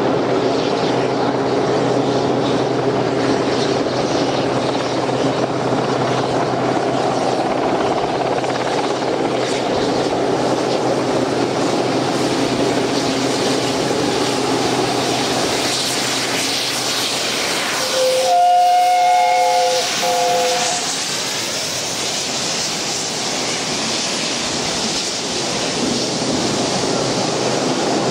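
Steam locomotive 60163 Tornado's chime whistle sounding for about three seconds, over a steady drone of the approaching train. Near the end the train is close, with the sound of the coaches rolling past.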